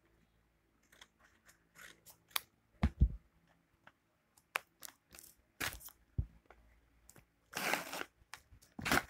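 A homemade paper blind bag being handled and pulled open: the paper rustles and crinkles in short bursts, with a dull bump about 3 s in and a longer rustle near the end.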